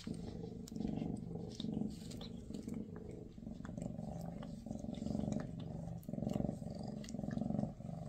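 Maine Coon cats purring close up, a steady low rumble that swells and fades about once a second with each breath, while the mother licks and grooms her kitten; small clicks of licking are heard now and then.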